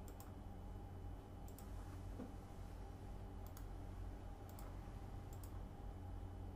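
Computer mouse clicking about five times at irregular intervals, several clicks heard as a quick press-and-release pair, over a steady low hum.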